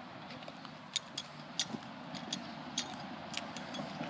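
Light, irregular clicks of footsteps and of a handheld iPod being jostled while walking, roughly two a second, over a faint steady outdoor background hum.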